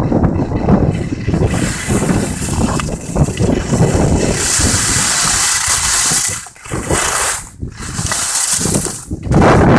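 Wind buffeting the microphone of a skier moving downhill, a steady rumble, mixed with the hiss and scrape of skis on hard, wind-packed snow that is strongest in the middle. The noise drops away briefly a few times near the end.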